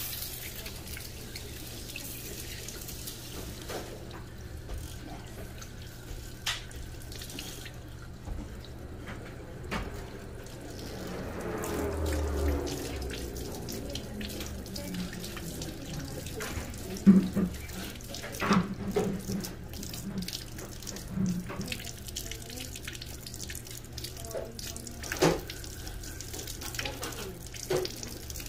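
Water running from a handheld salon spray nozzle onto a beard and splashing into a shampoo sink as dye is rinsed out. The flow is steady, with a few short knocks and splashes along the way; the loudest comes about halfway through.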